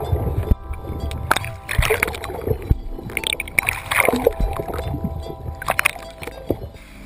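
Lake water splashing and gurgling around a camera at the waterline as it dips under and comes back out, in irregular splashes.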